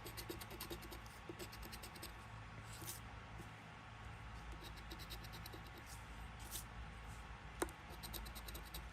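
Faint scratching as the coating is scraped off a scratch-off lottery ticket, in quick short strokes, with one sharper click near the end.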